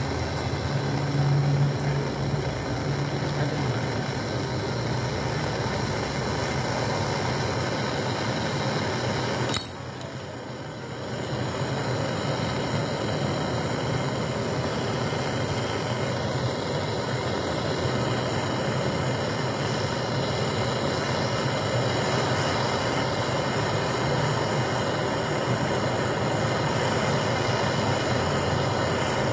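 Steady hiss of a gas brazing torch flame heating a copper refrigeration pipe joint on a strainer while it is brazed, dropping away briefly about ten seconds in.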